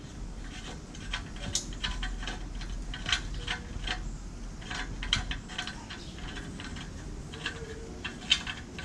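Irregular metallic clicks and clinks from a hand tool working a stuck oxygen sensor loose from a removed exhaust downpipe, over a low steady hum.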